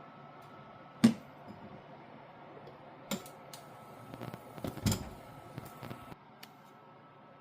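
Dishes and utensils being handled: scattered sharp knocks and clicks, the loudest about a second in, then a busier cluster of knocks around four to five seconds in.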